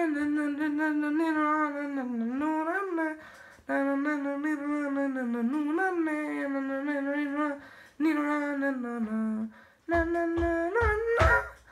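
A man humming a wordless tune in long, wavering held notes, in four phrases with short breaks between them, with a few knocks near the end.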